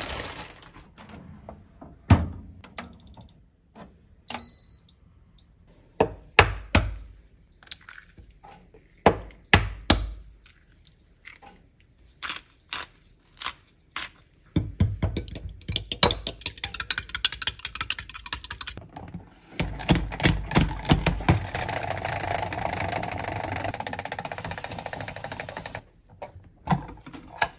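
Kitchen prep sounds: scattered sharp taps and knocks, then a fork beating an egg against a glass measuring cup in quick rhythmic clicks. Near the end comes a steady whir of a pump-style salad spinner spinning washed lettuce dry.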